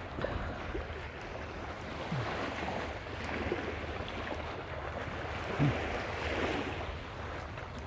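Water splashing as several dogs run and wade into shallow sea water at the shoreline, with wind noise on the microphone. Two brief low sounds come about two and five and a half seconds in; the second is the loudest moment.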